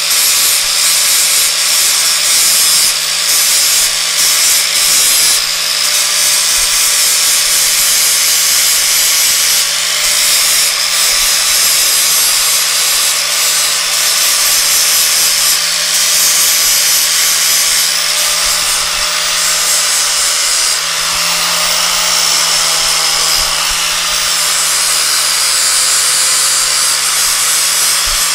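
DeWalt angle grinder with an abrasive disc running continuously, grinding down welds on steel welded onto a chrome bumper, a steady high whine with the hiss of disc on metal. The pitch dips slightly about two-thirds of the way through as it bears into the metal.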